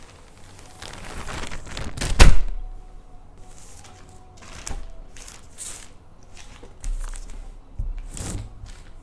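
Packaging being handled during unboxing: bursts of rustling, with one loud thunk about two seconds in and a few softer bumps later.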